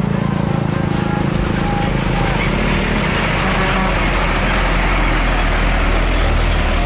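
Hino rigid box truck passing close by at low speed: a steady diesel engine note with tyre and road noise that swells into a broad rush about halfway through as the truck goes past.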